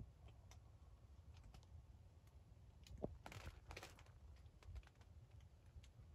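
Near silence: faint, irregular small clicks, with a brief rustle about three seconds in.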